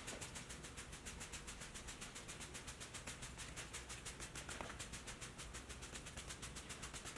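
Hand trigger spray bottle spritzing iron remover onto a truck's paint: a fast, even run of short hissing sprays, faint throughout.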